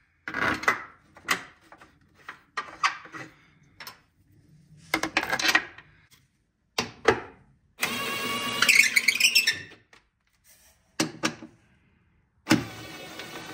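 Bolts being fitted and tightened on a carbon-fibre engine bay cover: a string of short clicks and clatters from tools and parts, and a little past the middle about two seconds of steady mechanical whirring that rises in pitch.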